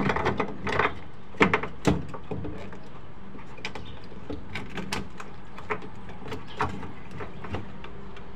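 Scattered clicks and knocks of hands working the fuel pump fitting loose from the top of a plastic fuel tank, sharper in the first two seconds and lighter and sparser after, over a faint steady low hum.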